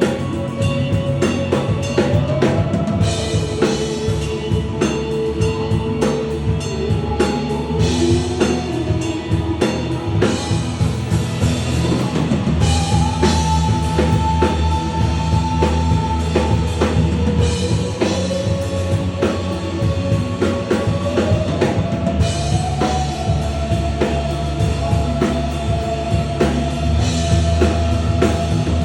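Rock music with a drum kit keeping a steady beat on bass drum and snare under a melody of long held notes that slide from one pitch to the next.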